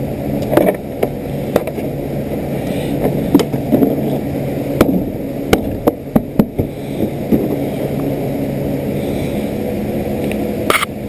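Scattered sharp clicks and light knocks from hand work on scooter wiring, over a steady low hum.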